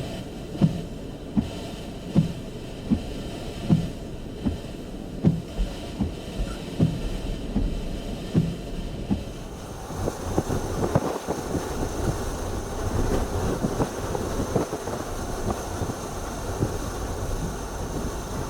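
A vehicle on the move: steady low running noise with a regular thump about every three-quarters of a second. About ten seconds in the thumps give way to a louder rushing noise full of small crackles.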